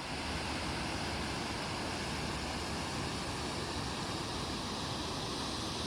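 Steady, even rushing road and tyre noise of a car driving along.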